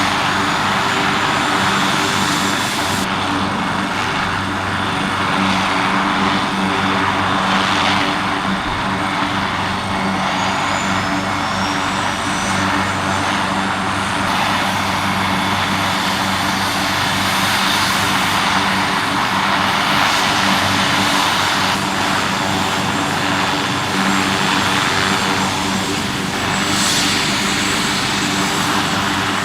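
Leonardo AW139 twin-turbine helicopter running steadily: a high turbine whine over a low, even hum.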